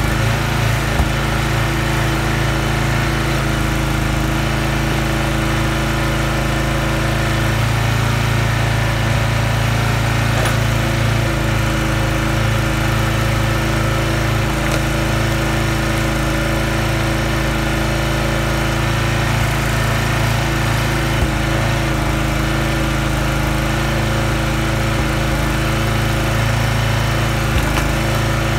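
Huskee log splitter's small gas engine running steadily, with a few short knocks.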